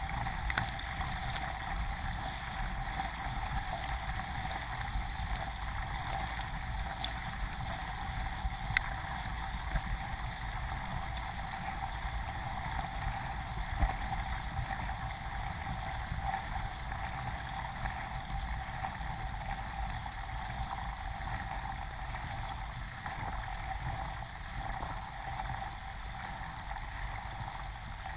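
Steady rush of water and paddle splashing from a moving racing kayak, picked up by a camera mounted on the boat's deck, with a steady whine underneath and a few sharp clicks.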